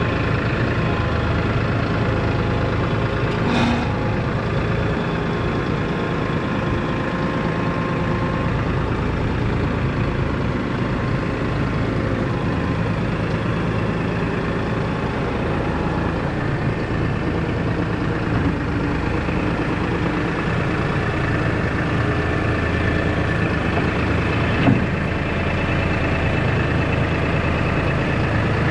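Tractor engine running steadily at work, with a short knock about three and a half seconds in and another near the end.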